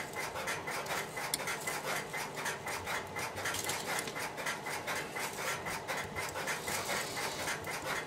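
Quick, even scratching and rubbing, about five strokes a second, from hands working the thin wires of a 25-pair cable into the comb of an AMP/Champ connector crimping tool.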